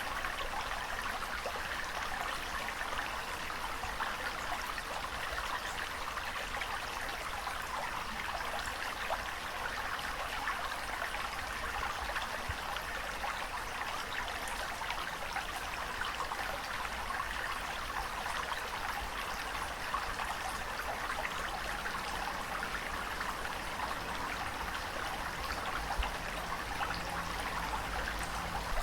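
Running water at a steady level, an even rushing hiss with fine trickling and splashing crackle through it, and no rise and fall of breaking waves.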